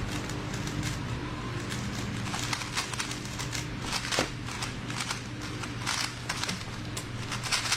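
A speed-solving Rubik's cube being turned very fast: quick, irregular plastic clicks and clacks in rapid clusters, over a steady low hum.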